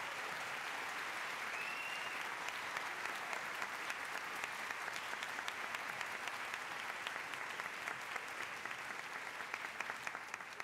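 Concert audience applauding, with dense, steady clapping.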